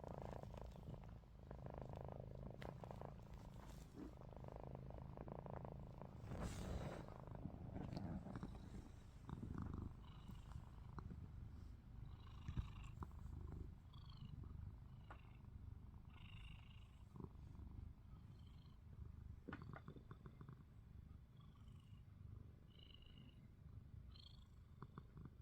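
A cat's faint, steady low purring rumble, the sound the owner takes for snoring with its eyes open. A few short high chirps and small clicks come through in the second half.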